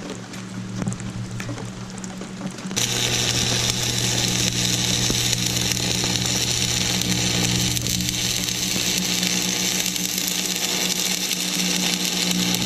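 Wire-feed welder arc on steel square tubing: a steady crackling sizzle that starts abruptly about three seconds in and runs without a break. A steady low hum sits underneath.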